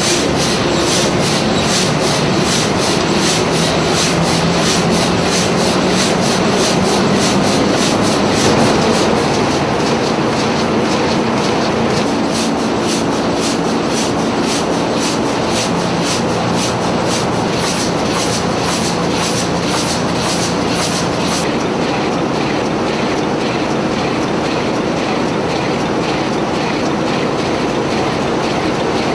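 Burmeister & Wain eight-cylinder opposed-piston two-stroke stationary diesel engine running at about 115 rpm: a loud, steady mechanical din with an even rhythmic clatter. The brighter clatter dulls about three-quarters of the way through.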